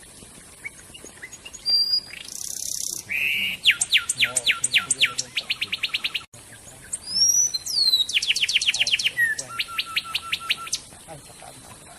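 A songbird singing: a harsh buzzy note, then two long, rapid trills of quick falling notes, separated by a few whistled glides.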